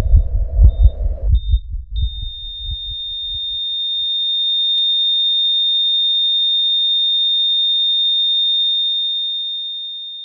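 Sound-design heartbeat thumping, slowing and fading to nothing about four seconds in, while a steady high-pitched sine tone fades in over it, holds, and fades away near the end.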